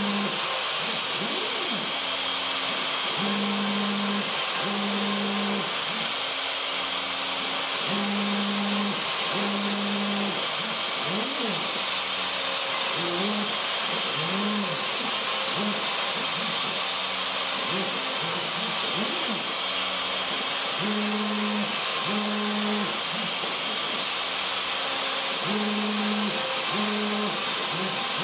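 Craftsman 2 hp router on a CNC machine running steadily with a high whine as a 1/16-inch tapered ball-nose bit profiles lettering in cedar. Under it, the machine's stepper motors sound as low tones that switch on and off and sweep up and down in pitch as the bit traces curves.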